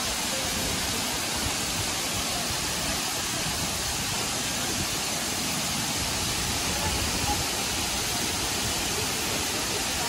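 Steady, even rush of a tall waterfall pouring into a deep plunge pool.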